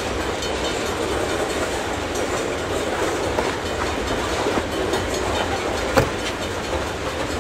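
Freight train tank cars crawling past: a steady rumble and clatter of steel wheels rolling on rail, with one sharp clank about six seconds in.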